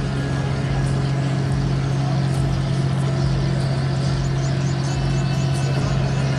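MV Coral Geographer's engines and machinery running with a steady, deep hum as the cruise ship moors alongside the quay.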